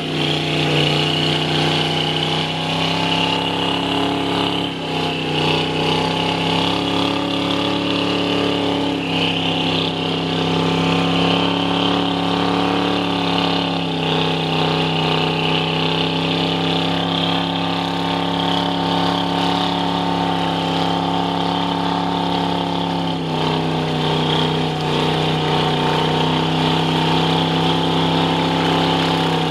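Mud-bogging Ford pickup's engine held at steady high revs under load as its oversized mud tires spin and churn through deep mud. The pitch dips briefly a few times.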